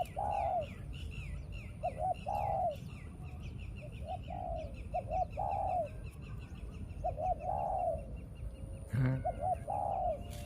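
A dove cooing over and over, a phrase about every two seconds: one or two short notes, then a longer rounded coo. Higher, thinner bird chirps run along above it.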